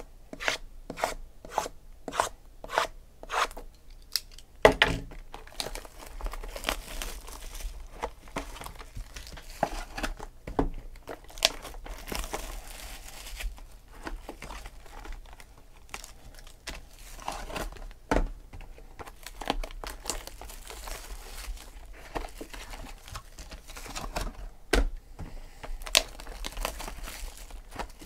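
Plastic shrink wrap being torn off a sealed trading-card box and crinkled in the hands. A run of sharp ticks, about two a second, comes in the first few seconds, and there is a louder knock about five seconds in.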